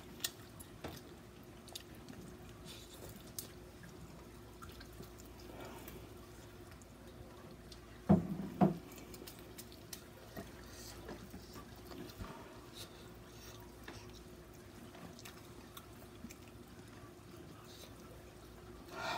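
Faint wet chewing and mouth sounds of someone eating sauce-covered fried chicken legs, with small clicks over a faint steady hum. Two short, loud vocal sounds come about eight seconds in.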